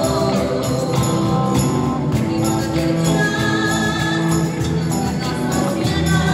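Live Latin pop band music: women's voices singing over acoustic and electric guitar, cajón and jingling hand percussion such as tambourine and shakers, in a steady rhythm with long held notes.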